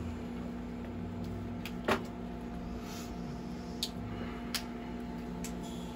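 Steady mechanical hum of operating-room equipment, with one sharp click about two seconds in and two lighter clicks a couple of seconds later.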